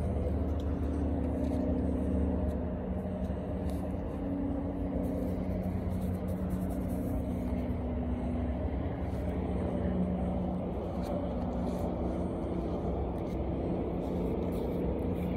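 A steady low engine or motor hum, its pitch drifting slightly, with a few faint clicks over it.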